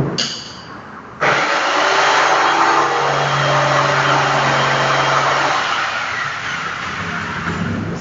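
Electric jigsaw switched on about a second in, cutting a speaker hole in the wooden top of a speaker box: a steady motor hum under a loud, dense cutting noise that eases off over the last couple of seconds.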